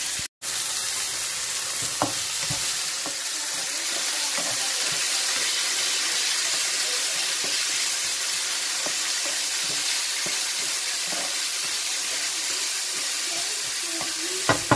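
Chopped onion, garlic and tomato sizzling steadily in a nonstick frying pan, with a slotted spatula scraping and tapping against the pan as they are stirred. The sound drops out for a moment just after the start, and there is a sharp tap near the end.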